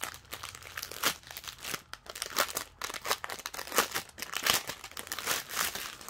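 Clear plastic bag full of diamond painting drill packets crinkling and crackling as it is handled and opened by hand.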